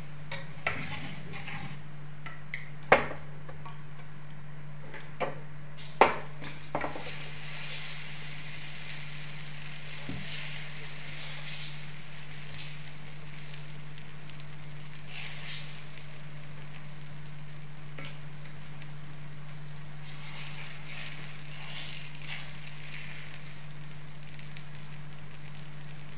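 Dosa batter sizzling on a hot dosa tawa, a hiss that rises about six seconds in and carries on. Before that come a few sharp knocks of a utensil against the griddle, the loudest two about three seconds apart, over a steady low hum.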